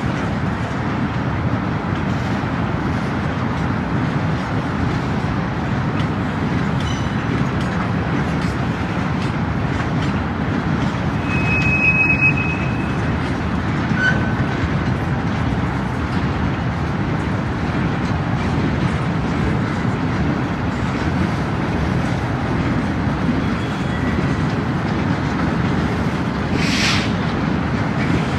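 Freight cars rolling slowly past: a steady rumble of steel wheels on rails, with a short high squeal from the wheels near the middle.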